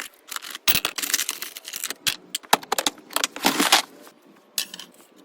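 Irregular clinks and clatter of small metal parts and tools being handled. The sound is dense for about the first four seconds and thins out to a few isolated clicks near the end.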